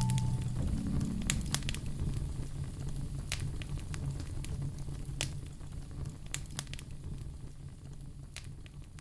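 Wood fire crackling in a fireplace: irregular sharp pops and snaps over a low steady rumble, the whole sound gradually fading out.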